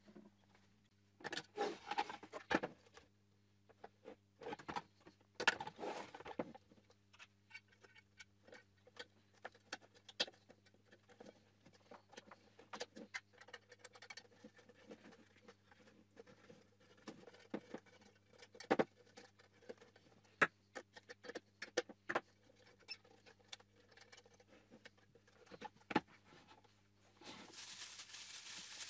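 Faint handling sounds of a bi-xenon projector being fitted into a plastic headlight housing: scattered clicks, taps and scrapes of plastic and metal parts over a faint steady hum. Near the end a plastic wrapping sheet crinkles.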